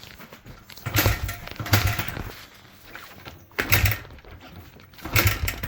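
A 2006 Honda CRF100F dirt bike engine being kicked over four times, each stroke giving a big loud clicking knock without the engine starting: the fault noise of a blown-up engine.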